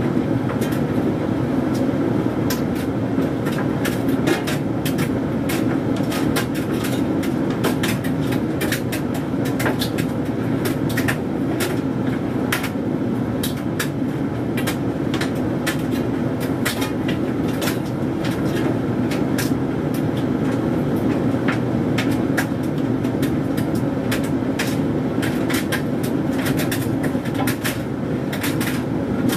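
Hoover Dynamic Mega 10kg condenser tumble dryer running on a low heat: a steady hum of the motor and fan as the drum turns, with irregular light clicks and knocks from the load of synthetics tumbling inside.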